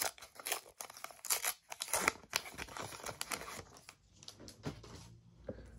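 Foil wrapper of a Panini Adrenalyn XL trading-card booster pack being torn open by hand, crackling and crinkling. The crackles thin out and grow faint for the last couple of seconds as the cards are drawn out.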